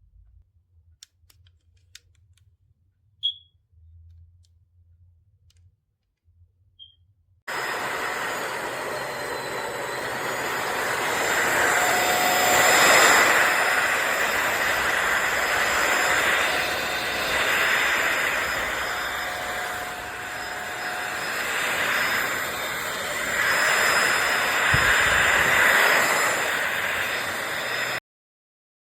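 PRETTYCARELIFE cordless stick vacuum running: a steady rush of suction with high whining tones, its level rising and falling. It starts suddenly about seven seconds in and cuts off abruptly near the end; before that, only a few faint clicks.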